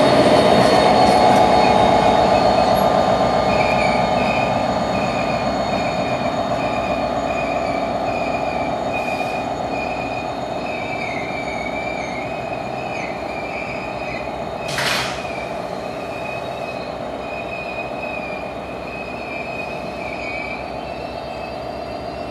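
NJ Transit push-pull commuter train slowing into the station, its wheels and brakes giving a high, wavering squeal over the running noise, which slowly fades. A short burst of hiss comes about two-thirds of the way through.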